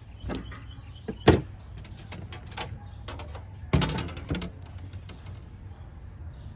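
Sharp knocks and clatters of cooking gear being handled at a smoker: one hard knock about a second in, then a louder cluster of clatters near the middle, with lighter clicks between.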